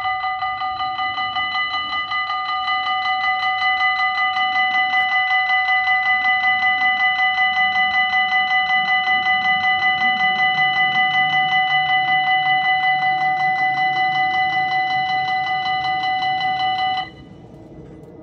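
Belgian level crossing's electronic warning bell ringing rapidly and steadily, about four strikes a second, while the red lights flash. It cuts off suddenly near the end.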